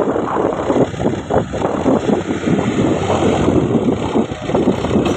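Massey Ferguson 240's three-cylinder diesel engine running hard, labouring under the heavy load of a sand-laden trolley on an upward slope.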